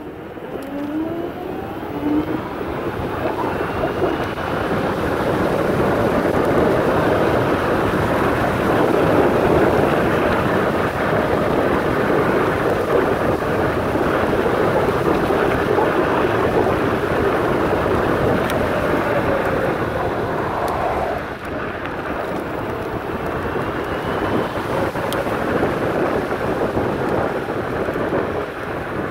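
Steady rush of wind and road noise from riding an electric scooter at speed, growing louder over the first few seconds. A faint whine rises in pitch near the start as the scooter picks up speed.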